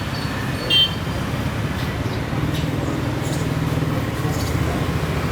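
An engine running steadily with a low, throbbing hum, with one brief high chirp about a second in.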